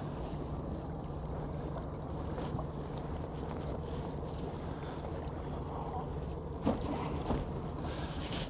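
Suzuki 60 hp outboard motor running steadily under load, towing a heavy string of langoustine pots up through the water on a rope made fast to the stern bollard. Two short faint knocks about half a second apart come near the end.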